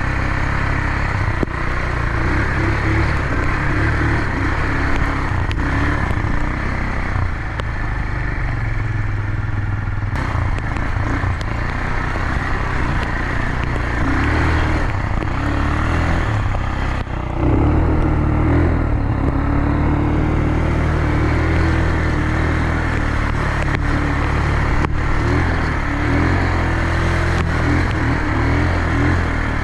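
ATV engine running while being ridden, its pitch rising and falling with the throttle over a constant rush of road and wind noise. It gets louder a little past halfway.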